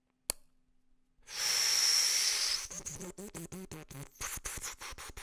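A sharp click, then about a second in a loud breathy hiss for about a second and a half, followed by a wavering, choppy voiced sound, like a person hissing through the teeth and then groaning.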